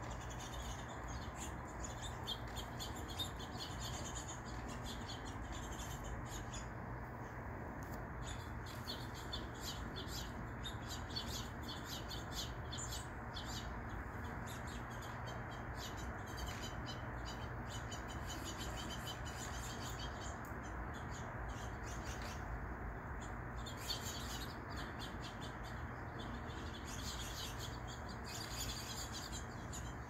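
Small songbirds chirping repeatedly, with short high calls coming in quick runs throughout, over a steady low background noise.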